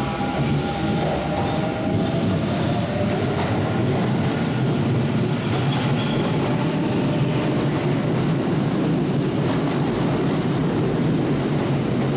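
Kintetsu eight-car electric train, four two-car sets coupled together, pulling out of an underground station platform: a motor whine rises in pitch over the first couple of seconds, then a steady rumble and clatter of wheels as the cars pass.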